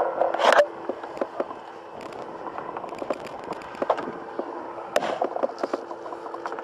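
Scattered clicks and knocks of hands working in a microlight cockpit, with a brief rustle about half a second in, over a faint steady hum.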